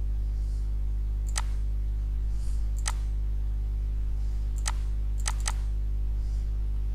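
Computer mouse clicking five times at uneven intervals, the last two in quick succession, over a steady low hum.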